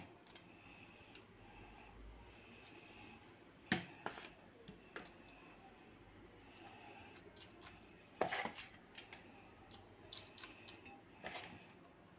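Metal spoon scooping wet rice filling from a ceramic bowl, with occasional sharp clinks against the bowl's rim; the loudest clink comes about eight seconds in.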